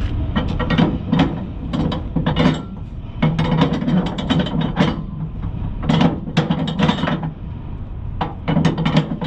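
Cargo strap being ratcheted tight on a flatbed load, the pawl clicking in quick runs of strokes with short pauses between, over a low steady rumble.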